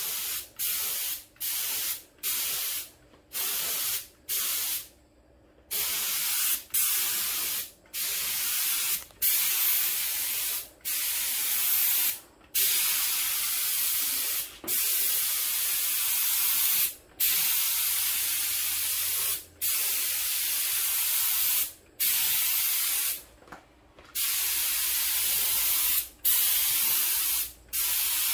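Air-fed gravity-cup spray gun hissing as it sprays a coat of clear coating onto a car fender. The trigger is pulled and released over and over: short bursts for the first few seconds, then longer passes of one to three seconds with brief breaks between them.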